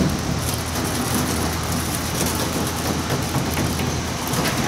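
Greenhouse's 12-inch electric exhaust fan running steadily: an even low motor hum under a broad rush of air.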